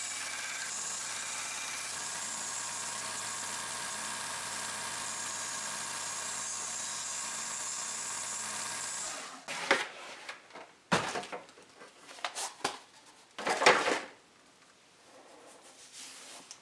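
Rikon 1x30 belt grinder running steadily while a steel plane iron is ground on its belt, throwing sparks. The machine stops about nine seconds in, followed by a few knocks and clicks as the blade and machine are handled.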